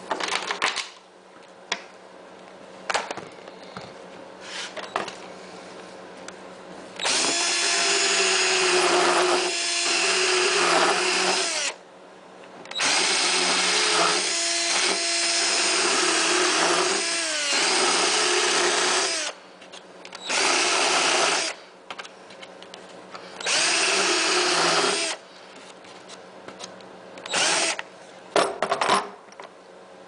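Power drill boring out the hole in a mower's dash console for a 12-volt socket, run in four bursts of a few seconds each, with the motor's pitch sagging and recovering as the bit bites. A couple of short blips follow near the end, and a few handling clicks come before the first burst.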